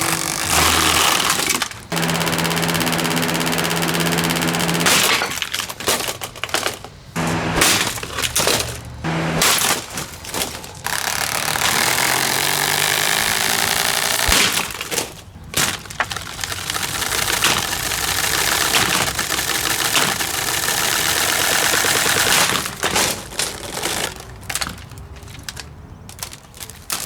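Pelonis plastic box fan being smashed and broken apart: loud, repeated cracking and breaking of plastic, with a few short pauses.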